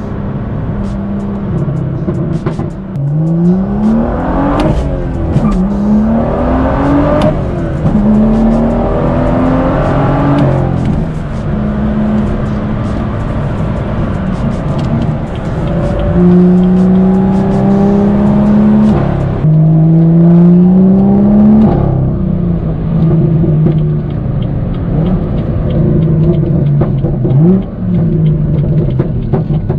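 BMW M2's N55 turbocharged inline-six with a catless downpipe, heard from inside the cabin, pulling hard through the gears of a manual gearbox: the engine note rises in pitch in several pulls, each dropping back at an upshift, with steadier cruising stretches between.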